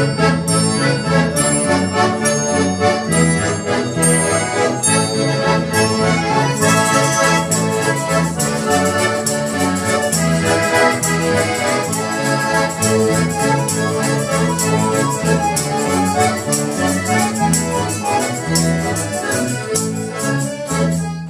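An ensemble of garmon-type button accordions playing a lively folk dance tune together. About six seconds in, tambourine jingles join on the beat and keep time.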